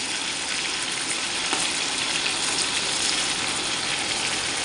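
Pieces of fatty pork frying in a pan of bubbling hot fat, a steady sizzle. The pork is frying in the lard it is rendering.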